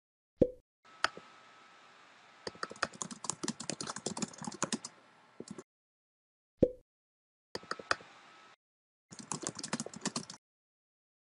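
Keyboard typing sound effect: bursts of rapid keystroke clicks as text is typed out letter by letter, stopping and starting three times. A short low thud comes about half a second in and again about six and a half seconds in.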